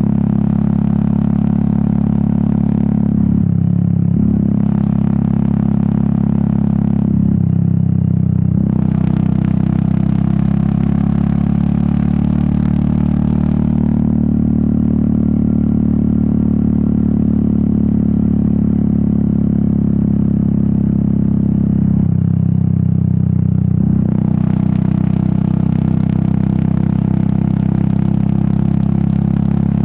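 Royal Enfield Meteor 350's single-cylinder exhaust running under way, a steady, loud engine note. It eases off briefly three times, and the pitch rises for a few seconds in between as it accelerates.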